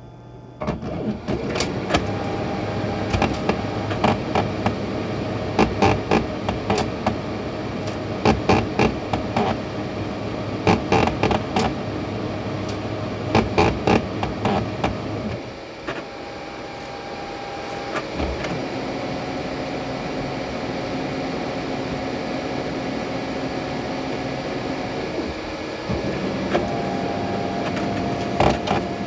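Brother HL-3045CN colour LED printer running with a steady mechanical whir and repeated sharp clicks and knocks, coming in clusters through the first half. About halfway the clicking stops and the printer runs more evenly with a held hum, and the clicks return near the end. This is an abnormal noise the owner is asking how to fix.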